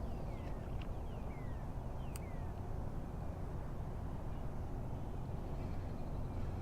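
Steady low outdoor rumble with a few short falling bird chirps during the first couple of seconds and a single sharp click about two seconds in.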